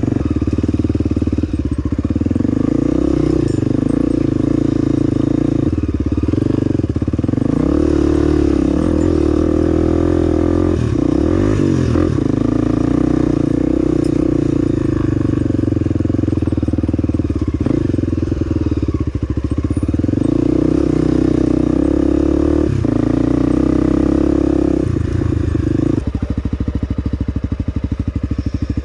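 Honda dual-sport motorcycle engine running under way, its pitch rising and falling with the throttle and dipping briefly several times, dropping to a lower note near the end.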